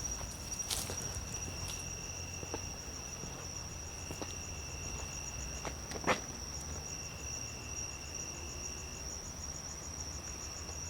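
Crickets trilling steadily in a high, continuous, evenly pulsing chirr, with a second, lower insect trill that comes and goes. There are a few faint handling clicks, and a sharper click about six seconds in.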